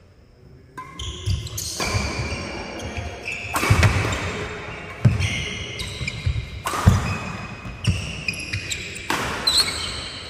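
Badminton doubles rally: a string of sharp racket strikes on the shuttlecock starting about a second in, with shoes squeaking on the wooden court floor between shots, echoing in a large hall.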